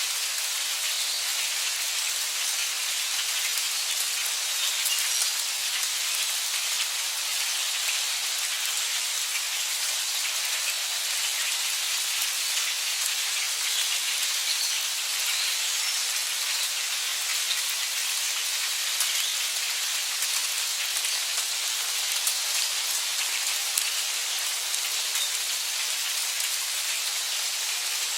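Heavy rain falling steadily, with a dense hiss of many small drops pattering on surfaces and no thunder.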